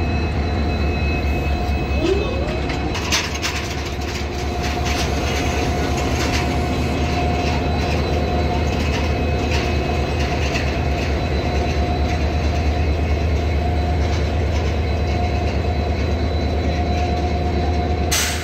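WDG-4D diesel-electric locomotive standing with its engine idling: a steady deep hum with a steady higher whine over it. A few brief knocks come about three seconds in.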